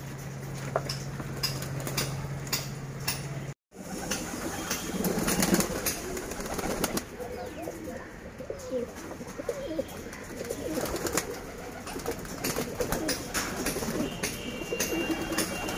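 Domestic pigeons cooing in their loft, with scattered sharp clicks and a short break in the sound about three and a half seconds in.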